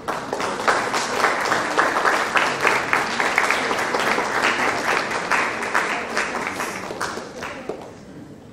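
Audience applauding: dense clapping that starts at once and dies away about eight seconds in.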